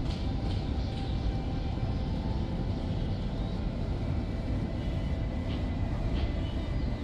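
Steady low rumble of wind buffeting the microphone high in the open air.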